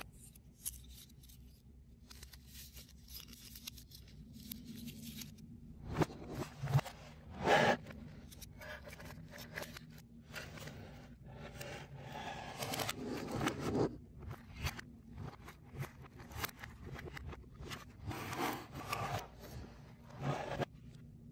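Foam-board and card 3D puzzle pieces being handled and fitted together: irregular scrapes, rubs and light clicks of the pieces against each other and the table, in short bursts with the loudest clusters about a third of the way in and again near the end.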